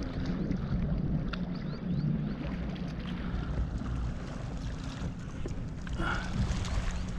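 Steady wind rumbling on the microphone of a fishing kayak on open water, with a few light clicks about a second in.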